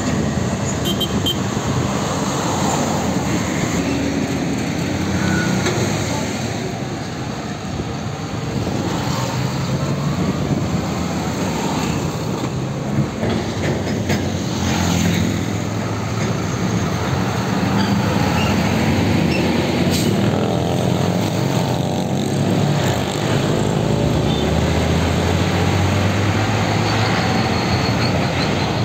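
Heavy diesel trucks passing one after another at close range, their engines running under load over continuous traffic noise.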